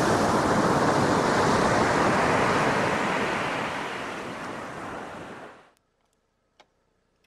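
Ocean surf washing onto a sand beach, with wind on the microphone. It fades and stops about five and a half seconds in, followed by a single faint click.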